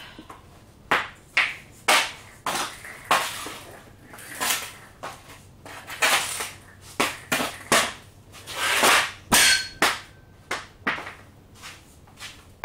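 Street hockey stick and puck knocking and cracking again and again at irregular intervals, some hits followed by a short scraping rattle. About three-quarters through, one hit leaves a brief ringing tone.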